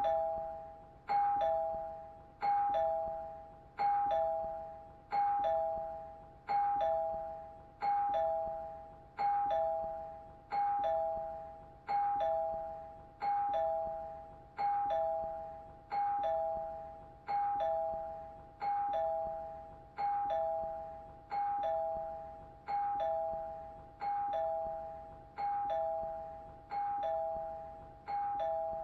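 Doorbell chime ringing ding-dong over and over: a higher note followed at once by a lower one, both ringing on and fading, repeating evenly about three times every four seconds.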